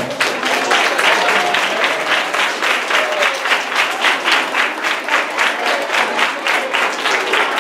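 An audience of schoolchildren applauding, the claps falling into a regular beat of about four a second.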